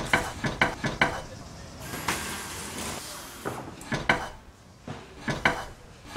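Runs of sharp clicks and knocks in quick succession, like small hard parts clattering, with a short hissing noise about two seconds in.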